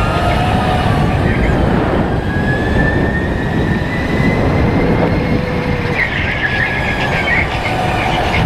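Sodi RTX electric go-kart heard on board: a thin electric motor whine rising slowly in pitch as the kart accelerates, over a constant rumble of the chassis and tyres on the track. About six seconds in, the tyres squeal briefly through a corner.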